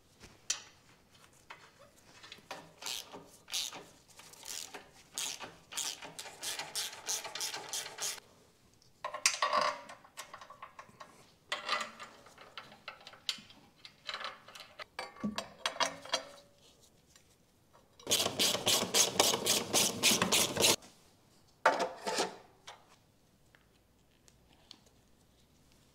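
Ratchet wrench clicking in quick runs as nuts are tightened on a car's exhaust fittings, with scattered metal clinks and handling noise. The longest and loudest run of clicks comes about three quarters of the way in.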